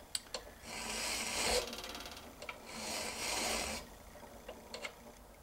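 Flat bastard file rasping across the steel teeth of an ice axe pick clamped in a vise, filing down one of the teeth. There are two long strokes of about a second each, with a few light clicks of the file against the metal between them.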